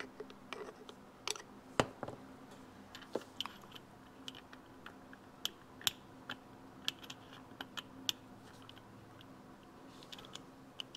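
Steel transmission gears on a motorcycle main shaft clicking and clinking as they are slid along the splines and turned by hand: a scatter of small, irregular metallic clicks, the loudest about two seconds in.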